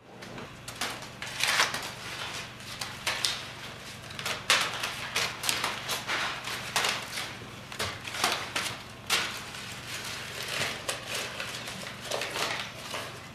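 Irregular clattering knocks and clicks, several to the second at times, over a low steady hum.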